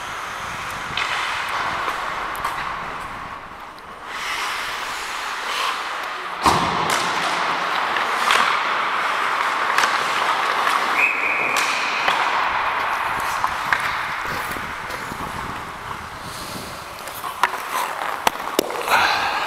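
Ice hockey play: skates scraping on the ice with scattered sharp clacks of sticks and puck, and one loud thump about six and a half seconds in.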